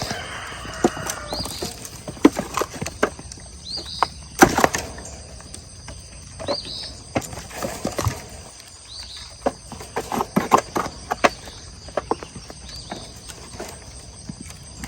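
Irregular knocks and clatters, with a short high rising chirp repeating every two to three seconds.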